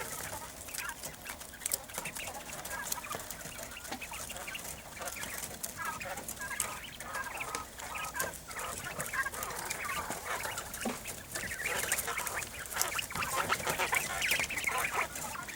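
Domestic quail chirping and calling softly, with many light clicks and taps among them; the calls come in two clusters, in the middle and toward the end.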